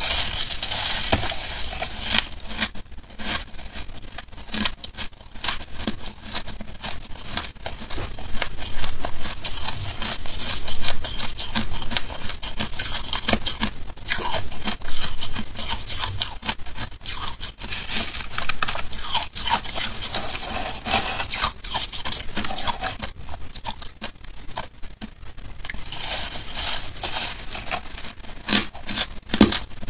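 Close-miked crunching of soft, snow-like frost ice, bitten and chewed in dense irregular crunches with a few louder bites, along with the crunch of a gloved hand grabbing the ice.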